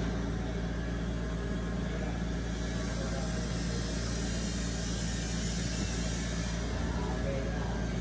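Steady low mechanical hum, like a motor running, at an even level throughout.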